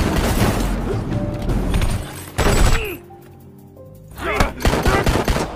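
Action-film combat-scene soundtrack: music under heavy thuds and impacts, with one loud hit about two and a half seconds in.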